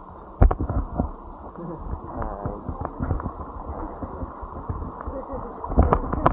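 Muffled low rumble with irregular knocks and thumps, louder clusters shortly after the start and again near the end.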